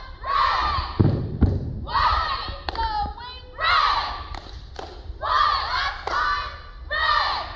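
A cheerleading squad shouting a chant in unison, one phrase about every second and a half, with low thuds of feet landing on the mat.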